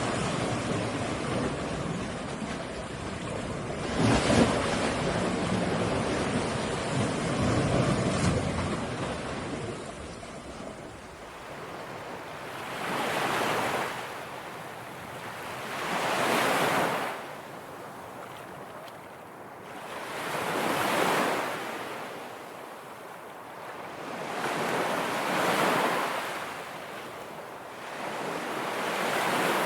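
Ocean surf, dense and deep at first with wind. About ten seconds in it gives way to waves washing onto a shore, each one swelling and receding about every four seconds.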